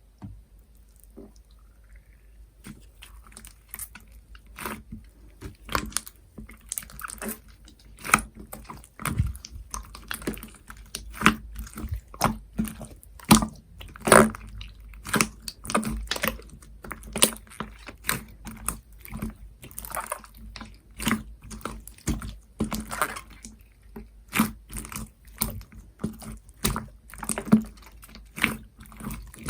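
Hands squishing and pressing a thick slime, making irregular sticky pops and clicks about one or two a second.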